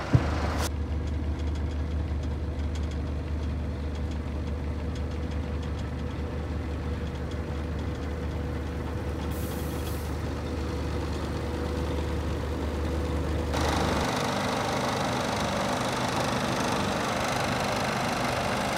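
Scania T124 truck's 12-litre straight-six diesel idling steadily, after a brief knock at the very start. It is heard first from inside the cab as a low, muffled drone; about 14 seconds in it becomes clearer and brighter, heard from outside the truck.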